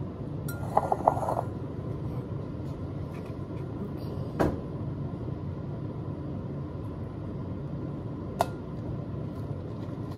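Kitchen handling sounds while jackfruit is being worked: a short rattle of clinks about a second in, then two sharp taps, one near the middle and one near the end, over a steady low hum.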